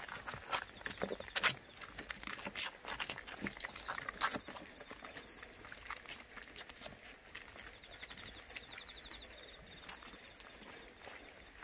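A litter of white puppies suckling at their mother: a scatter of small wet clicks and smacks, busiest in the first four seconds, then quieter.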